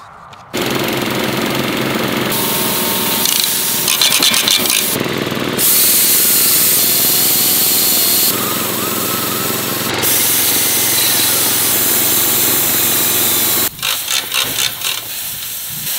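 Power tools cutting and drilling steel, a drill boring a hole through steel plate among them, in a string of short clips that change abruptly every few seconds.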